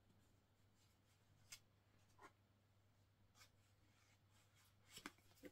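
Near silence: a few faint taps and rustles of a paperback book being handled as a crochet bookmark is slipped between its pages, over a low steady hum.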